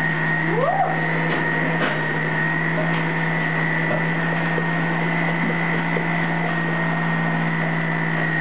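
Electric centrifugal juicer running, its motor giving a steady hum with a constant high whine.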